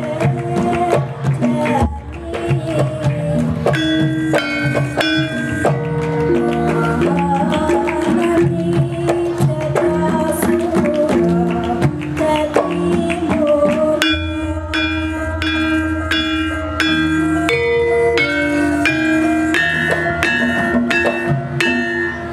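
Javanese gamelan ensemble playing: bronze saron metallophones struck with mallets, bonang and kendang drum, with a wavering sung line over the first half. From about halfway through, bright ringing strikes of the metallophones come to the fore.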